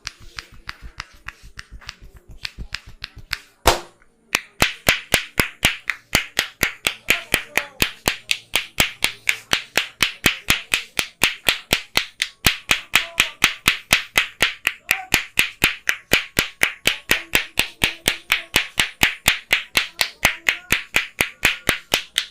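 Percussive massage with a barber's hands: a fast, even run of clap-like slaps, about four a second. The slaps are soft at first, then after one loud slap about three and a half seconds in they keep going loud and steady.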